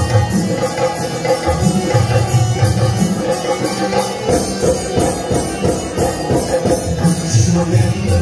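Harmonium and dholak drum playing an instrumental passage of a live song, with a steady percussion beat under held harmonium notes.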